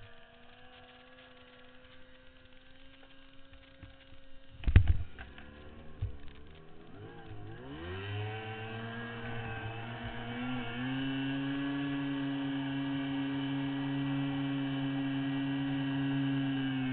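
Racing outboard motor on a C-stock runabout, first running low and quiet, with one loud knock about five seconds in. It then speeds up, its pitch rising, and holds a steady, much louder note at speed.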